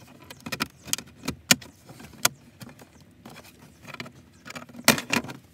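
A plastic trim tool prying at the Ford F-150's dashboard speaker cover. The tight plastic retaining clips give a scatter of sharp clicks and scrapes, with a close pair of loud snaps near the end.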